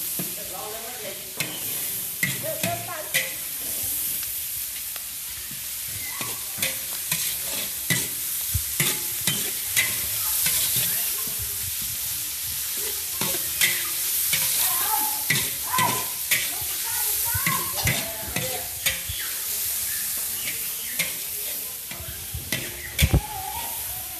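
Chopped meat frying in a large metal wok with a steady sizzle, while a metal spatula scrapes and knocks against the pan at irregular intervals as the meat is stirred.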